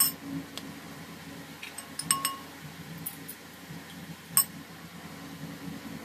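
Small glass dessert cups clinking as they are handled and set down, about half a dozen sharp clinks, one ringing briefly about two seconds in. A steady low hum runs underneath.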